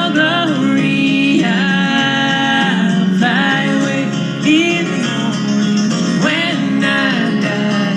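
Country/bluegrass-style music with guitar and a singing voice.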